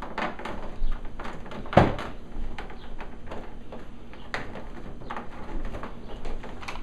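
Back cover of a Samsung LCD TV being settled into place and shifted by hand: scattered knocks, clicks and scrapes, with the loudest thump about two seconds in.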